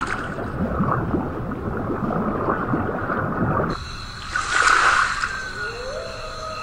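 Underwater animation sound effects: dense bubbling and gurgling, then an abrupt change a little over halfway in to a short rushing whoosh, followed by a tone that rises and then holds steady.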